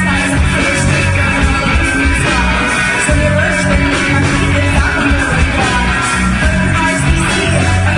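Live rock band playing: a woman singing over electric guitars, bass and drums, loud and steady throughout.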